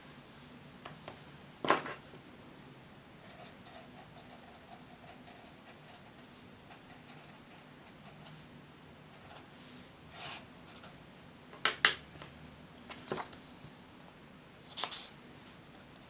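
Desk sounds of pens being handled while studying: several sharp clicks and taps of pens set down on and picked up from the desk, the loudest about two seconds in and a close pair about twelve seconds in, with faint pen-on-paper writing between them over a low steady room hum.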